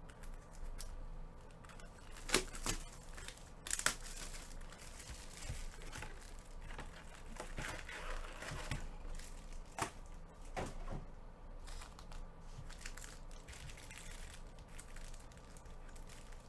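Foil trading-card packs crinkling and rustling as they are handled and stacked, with a few sharp knocks as packs and a card box are set down on the table.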